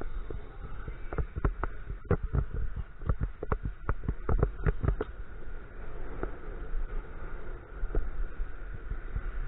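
Low rumble and wind noise from a bicycle-mounted camera riding on the road, with a burst of irregular sharp knocks and rattles from about a second in to about five seconds, as the bike and camera mount jolt over the road surface.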